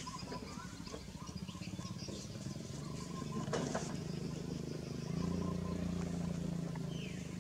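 A motor engine running, a low steady hum that grows louder about five seconds in.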